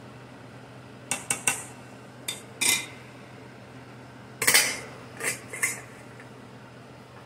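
Stainless steel saucepan and lid clinking and clattering: a run of short, sharp knocks in two clusters, the loudest about halfway through, as the pan of baby food is stirred and the lid is handled and set on the pan.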